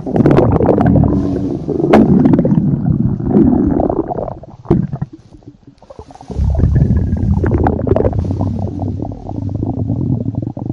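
Stomach growling loudly in long, uneven rumbles, with a short lull a little before halfway before the rumbling starts again.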